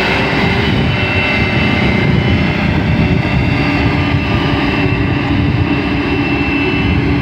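Heavy road-construction machine's engine running steadily, a dense low rumble with a steady high whine on top.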